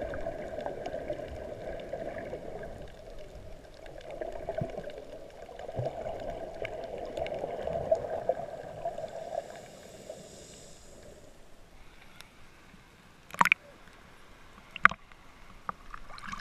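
Muffled rushing and gurgling of water heard underwater through a camera's waterproof housing while snorkeling in shallow water. The noise thins out past the middle, and two sharp knocks sound about a second and a half apart near the end.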